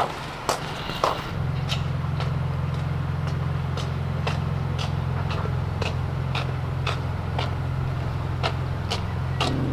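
Sharp knocks about twice a second over a steady low mechanical hum that starts about a second in.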